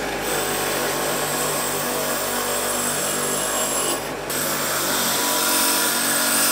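Ryobi bench grinder with a wire wheel running, with rusty leaf-spring bush pins and shackle plates held against it to strip rust and old rubber: a steady motor hum under a loud hiss of wire on metal, broken off briefly about four seconds in.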